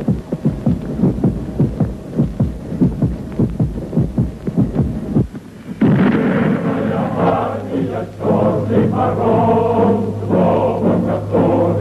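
Music: a fast, even drumbeat, about three strikes a second, then about halfway through a choir breaks in, chanting over a steady low drone.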